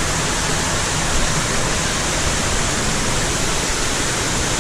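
Cave waterfall pouring, a loud, even rush of water.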